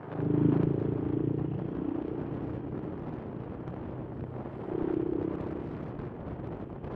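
Honda Supra X 125 FI motorcycle engine pulling hard as the bike accelerates. It surges loudly just after the start, eases off, and surges again briefly around five seconds in.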